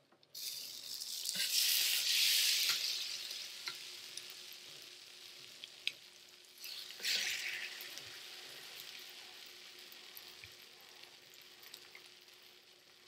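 Egg-batter-soaked sandwiches sizzling as they are laid on a hot George Foreman contact grill: a sudden loud sizzle about half a second in that slowly fades, then a second one about seven seconds in as another sandwich goes down.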